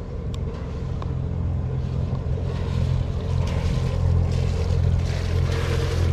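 Yanmar 3YM30 three-cylinder marine diesel running steadily at idle, fed from a jerry can through the Raycor fuel filter in a test for the air leak behind its intermittent stalling. A rushing hiss grows louder over the second half.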